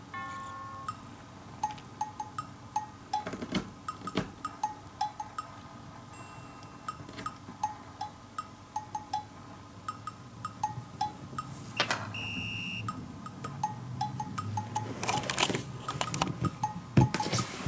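Light, playful background music of short plinking, cowbell-like notes in a bouncy rhythm, with a brief sustained chime-like tone about twelve seconds in. A few sharp knocks and rustles of movement on a wooden floor cut across it, thickening near the end.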